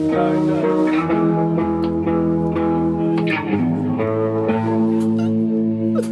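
Live band music: guitars ringing out sustained chords over a bass guitar, with no singing. The chord changes about a second in and again around the middle.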